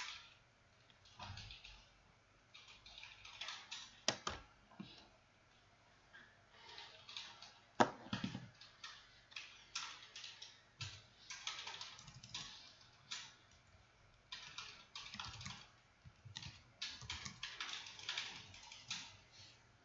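Computer keyboard typing: short irregular bursts of key clicks with pauses between them, and a few louder single key strikes, the loudest about eight seconds in.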